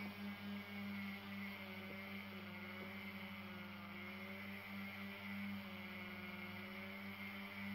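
Flexible-shaft rotary tool running steadily with a small polishing wheel working the silver inlay of a wooden cane handle: a constant low hum under a steady high whine.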